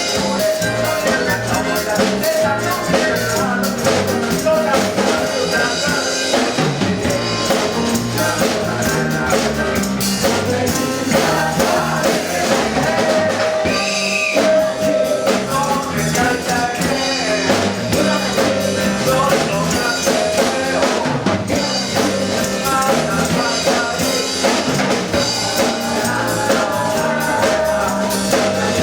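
Eleven-piece band playing a song live, with instruments and drums going steadily and no talking.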